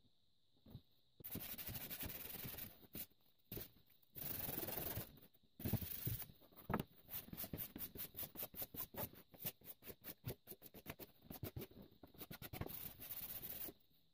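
Steel hand-saw blade being rubbed by hand on a wooden workbench: two longer scraping passes, then a fast run of short back-and-forth rubbing strokes, about four a second, that stop near the end.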